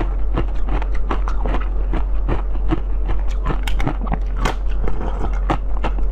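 Close-miked mouth sounds of eating blue jelly straight from a plastic cup: quick wet clicks, sucks and squelches, about four or five a second, over a steady low hum.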